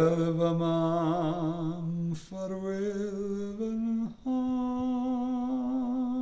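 A solo voice sings a slow, wordless line of long held notes with vibrato, each note a step higher than the one before.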